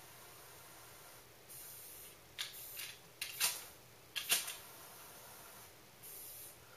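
Zippo Blu butane lighter being worked: a soft hiss of gas and several short, sharp clicks and strikes from its lid and flint wheel, the loudest four coming between about two and four and a half seconds in.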